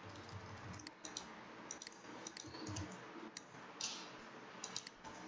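Faint, scattered clicks of a computer mouse and keyboard, about ten separate clicks over a few seconds.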